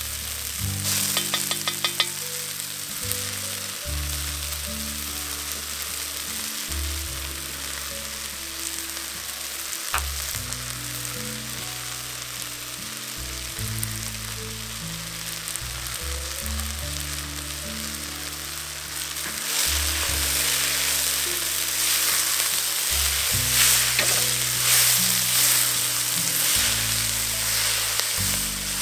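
Diced onions, mushrooms and bell peppers sizzling in oil in a pot, with utensil stirring. The sizzle gets louder about two-thirds of the way through. Background music with low held notes plays underneath.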